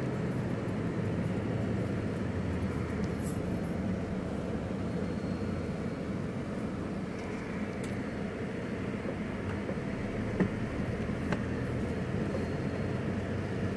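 Steady engine hum and road noise of a moving delivery vehicle cruising on the highway, with two short ticks about two-thirds of the way through.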